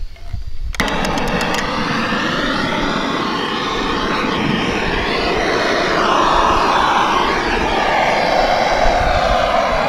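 Handheld gas-cartridge blowtorch lighting with a few quick clicks about a second in, then burning with a steady rushing hiss.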